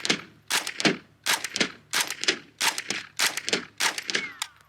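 Chiappa AK-22 .22 LR semi-automatic rifle firing a quick string of sharp shots, about two a second, that stops just before the end. The rifle cycles each round without a jam.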